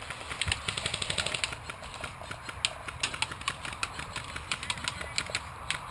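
Airsoft guns firing: a rapid burst of sharp clicks in the first second and a half, then scattered single shots and short bursts, over a low steady rumble.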